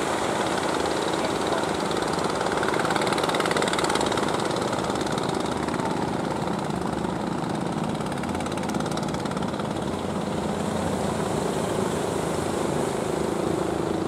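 Fishing boat inboard engines running with a steady drone, over a constant wash of waves.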